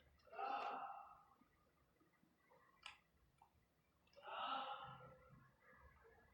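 Faint, mostly quiet stretch with two soft exhaled breaths close to the microphone, about half a second in and about four seconds in, and a single small click near the three-second mark.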